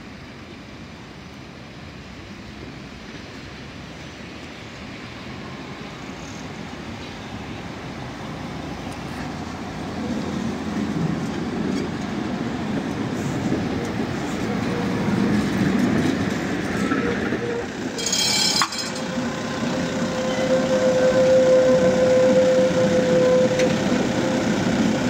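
Duewag GT6 articulated tram running on its rails, its rumble growing steadily louder. About 18 seconds in there is a brief high-pitched ring, and a steady tone sets in near the end.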